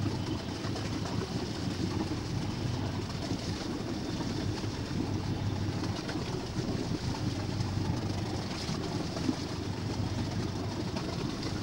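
Boat engine running steadily under way, a low drone with a hiss of wind and water over it.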